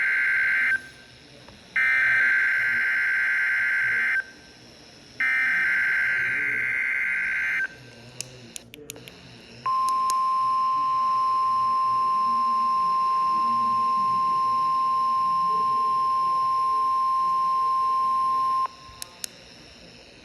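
NOAA Weather Radio broadcast of an EAS test: the end of one buzzy SAME digital header burst and two more like it, each about two and a half seconds with short gaps between, then after a few clicks the steady 1050 Hz warning alarm tone. The alarm tone is held for about nine seconds and cuts off sharply.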